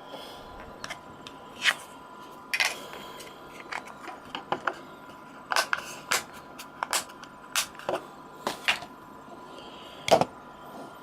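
Irregular clicks and knocks of small hard objects being handled, more than a dozen of them, the loudest about ten seconds in.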